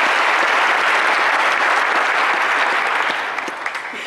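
Audience applauding steadily, the clapping thinning out and fading near the end.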